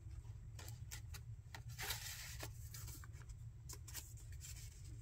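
Faint paper handling: an old photograph and postcards slid in and out of a pocket and a page of a handmade junk journal turned, with scattered light rustles and soft taps over a low steady hum.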